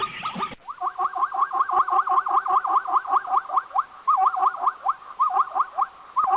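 An animal call repeated as a rapid, even series of short rising chirps, about five a second, following a brief cut from a different animal recording about half a second in.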